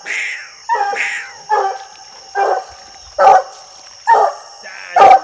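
Black and tan coonhound barking at the base of a tree, a steady run of about eight loud barks roughly two-thirds of a second apart: the hound's treeing bark, the sign it has a raccoon up the tree.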